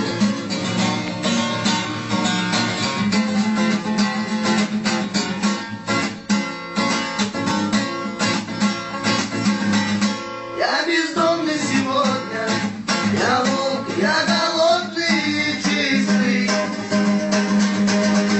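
Acoustic guitar strummed quickly in a steady rhythm. About halfway through, a voice starts singing over it.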